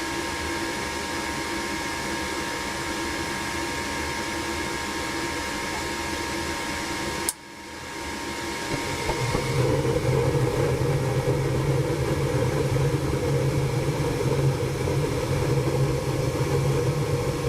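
Gas furnace running as it is fired: a steady fan hum, a sharp click about seven seconds in, then a louder, deeper hum that builds over the next two seconds and holds.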